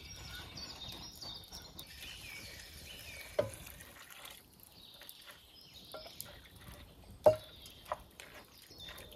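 Liquid poured from a steel pot into a cast-iron Dutch oven, then stirred with a wooden spoon. Two sharp knocks against the pot, one near the middle and one near the end, are the loudest sounds.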